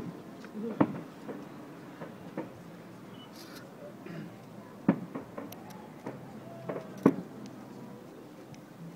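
Distant fireworks shells bursting: a few dull thumps, the loudest about a second in, around five seconds in and about seven seconds in, with fainter ones between.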